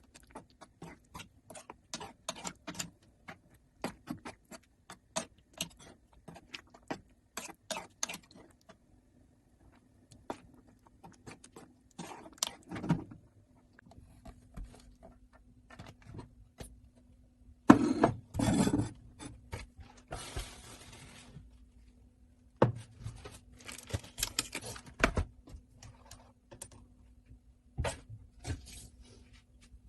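Kitchen utensils and dishes clinking, knocking and scraping in irregular bursts, over a faint steady hum.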